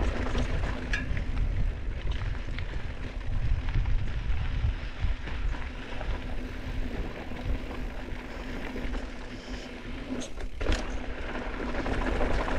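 Mountain bike riding down a dirt singletrack trail: wind buffeting the camera microphone and tyres rolling over dirt, with bike rattle and a couple of sharp clatters near the end.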